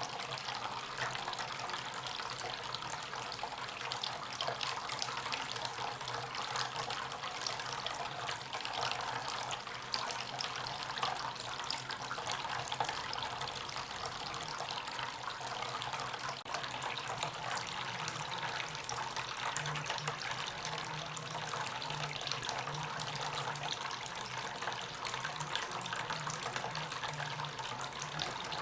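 Water from a small homemade tabletop fountain, driven by a submersible pump, falling and trickling steadily, with a faint low hum underneath.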